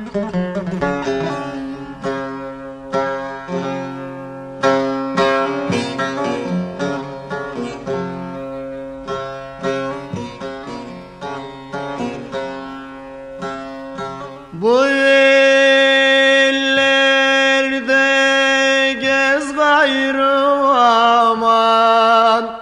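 Turkish folk music on the bağlama, a long-necked plucked lute: a busy run of quick plucked notes, then about two-thirds of the way through a man's voice slides up into one long held note over the strings, wavering near the end.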